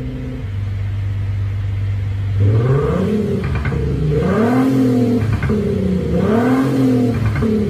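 Synthesized engine sound from a JSR XHAUST active exhaust sound generator with sub speaker, fitted to a Mercedes E220d and set to the Nissan GT-R (R35) exhaust profile. It holds a steady idle drone, then from about 2.5 s in gives three rev blips, each rising and falling in pitch.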